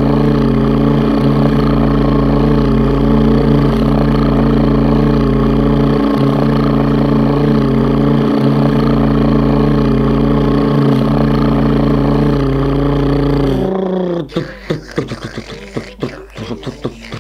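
A person's voice holding a steady low hum as a mouth-made sound effect, unchanged in pitch for about fourteen seconds. It then drops slightly and breaks into short, choppy mouth sounds.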